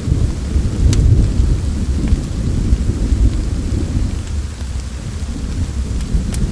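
Wood fire crackling in a fireplace, with a few sharp pops about a second in and near the end, over a steady deep rumble of rain and thunder.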